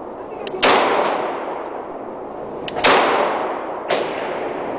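SIG Sauer P226 9mm pistol firing two shots about two seconds apart. Each shot is followed by a long echo off the hard walls of an indoor range. A much fainter sharp crack comes about a second after the second shot.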